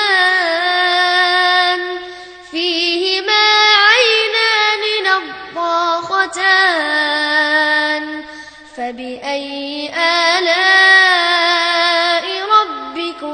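A single voice reciting the Quran in melodic chanted style, holding long ornamented notes that glide and waver between phrases, with short pauses for breath.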